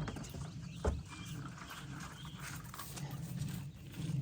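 Pigs grunting low and steadily, with a single knock about a second in.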